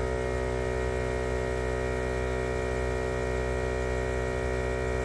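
Viair air compressor running with a steady, even hum, pumping air into a motorhome tire through an inflator chuck with a dial gauge.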